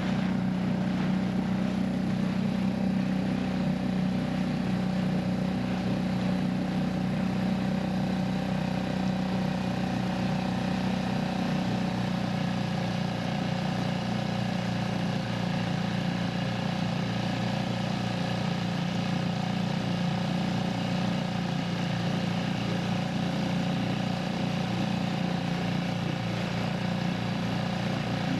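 An engine running steadily at one constant speed, with a strong low hum and several steady higher tones.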